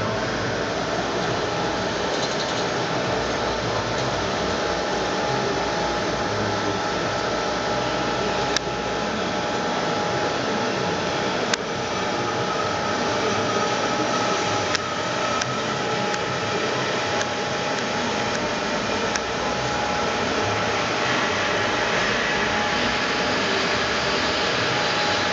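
AMADA HFA 330 automatic band saw running with a steady machine hum as its saw head feeds down. Three short sharp clicks come near the middle.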